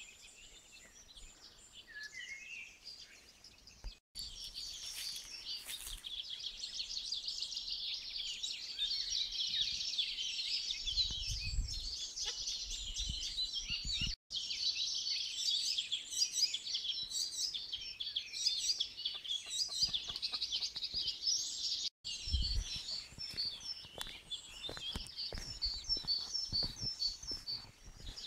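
Chorus of many birds chirping and singing together in woodland: sparse calls at first, then a dense, unbroken stream of fast high chirps from about four seconds in. A few brief low rumbles of wind or handling on the microphone.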